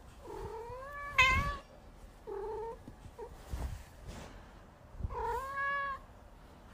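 A Scottish Fold cat meowing three times: a long drawn-out call with a sharp, loud cry about a second in, a short call, then another drawn-out call near the end.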